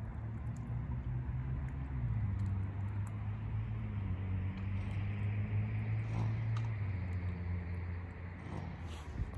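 A steady low engine hum from an unseen motor, easing off near the end, with a few faint small splashes and taps as a mallard drake dabbles its bill in shallow water.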